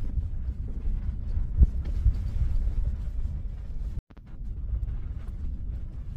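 Low rumble of a moving vehicle with irregular bumps and knocks as it drives along a dirt street. The sound drops out for a moment about four seconds in.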